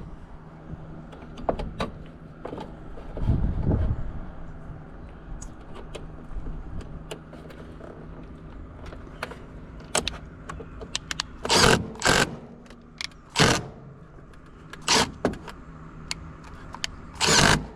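Hands working electrical wires and connectors at an air conditioner's capacitor: scattered small clicks and rattles, then several short harsh rasps in the second half, over a steady low hum.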